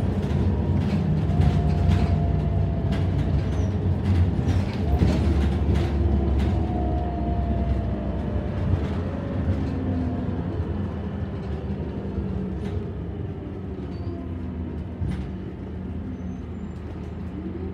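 Scania K230UB city bus heard from inside the cabin while under way: its rear-mounted five-cylinder diesel gives a steady low drone, with whines that slowly rise and fall and scattered short rattles and clicks. The sound grows quieter toward the end.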